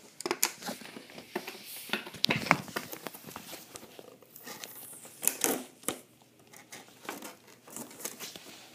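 Toy packaging being handled and pulled at: irregular crinkling and rustling of the box and its packing, with small knocks, coming in clumps and dying down over the last few seconds.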